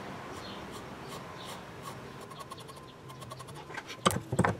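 Pencil drawing on a wooden lure blank, a few light scratching strokes. Two or three sharp knocks about four seconds in.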